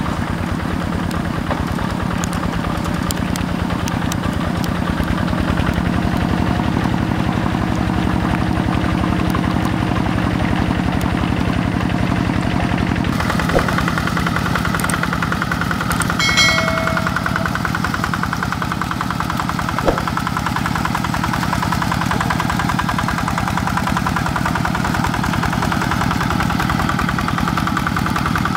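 Single-cylinder diesel engine of a Quick G1000 two-wheel hand tractor running steadily under load as it drags its plough and cage wheels through flooded paddy mud. Its sound turns closer and brighter about halfway through.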